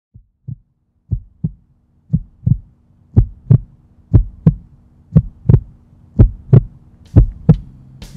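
Heartbeat sound effect: paired low thumps, lub-dub, about once a second, growing steadily louder over a low steady hum.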